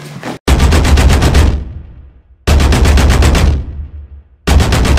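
Title-card sound effect: three sudden bursts of rapid-fire rattling, about ten hits a second over a deep bass, starting about two seconds apart and each fading out.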